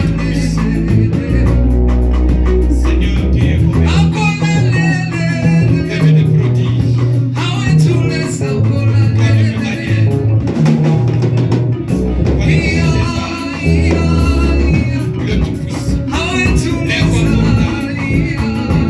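Live church worship band playing a hymn, with drum kit, guitar and bass under voices singing in phrases.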